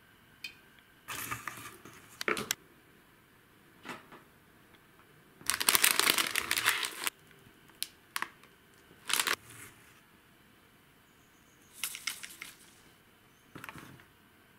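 Snack packaging crinkling and crunching in irregular bursts, the longest and loudest lasting about a second and a half around six seconds in.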